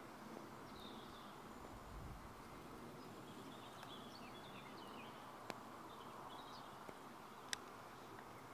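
Faint, quiet background hiss with distant birds chirping briefly a few times, and three sharp clicks spread through it.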